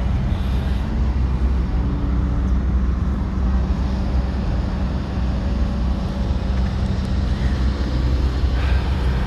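Steady low rumble of open-air background noise, with a faint steady hum underneath and no distinct event.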